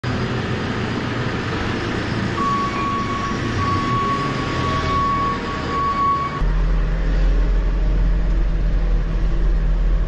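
JCB Agri Super telehandler's diesel engine running while it lifts two bulk bags of seed on its forks, with a steady high whine that breaks off twice, from about two to six seconds in. About six seconds in the sound cuts to inside the cab: a louder, steady low engine drone.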